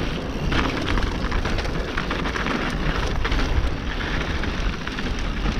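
Mountain bike descending a dry, loose dirt trail: tyres crunching over dirt and small stones with a steady run of small knocks and rattles from the bike, over a deep rumble of wind on the microphone.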